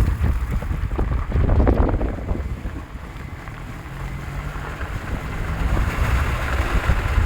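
Wind buffeting the microphone over a low rumble. It eases for a few seconds in the middle, where a steady low hum comes through, then picks up again.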